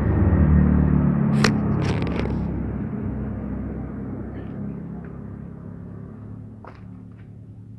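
A low motor hum with several steady tones, fading gradually away, with a few sharp clicks about a second and a half and two seconds in.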